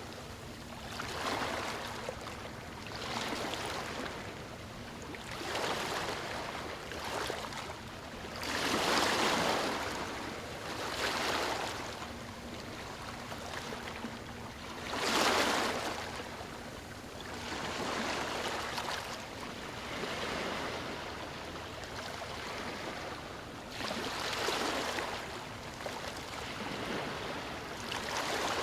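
Small, calm waves breaking and washing up on a sandy beach, a hissing surge every two to three seconds, each swelling and fading away, with a few louder breakers.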